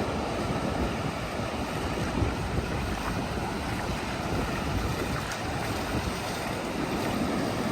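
Ocean surf breaking in a steady wash, with wind buffeting the microphone in low, uneven gusts.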